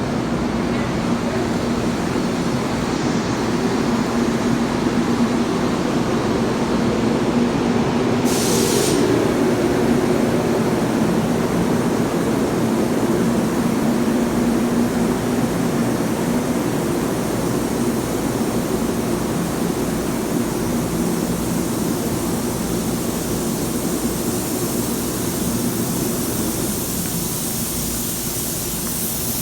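Metro-North commuter train humming steadily, with a short sharp hiss of air about eight seconds in; a higher hiss grows near the end.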